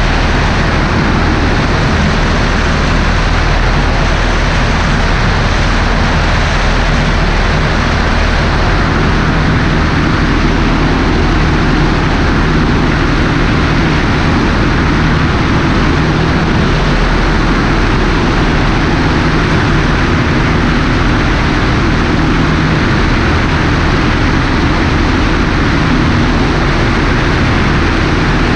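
Cessna 150's Continental O-200 four-cylinder engine and propeller running steadily in flight, heard from under the wing with heavy wind rush over the microphone.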